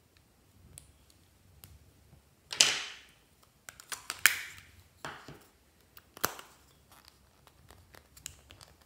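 A velvet-covered lipstick case being handled and pulled apart by hand: a series of sharp clicks and snaps of its metal and plastic parts, a few with a short scraping tail, the loudest two about two and a half and four seconds in.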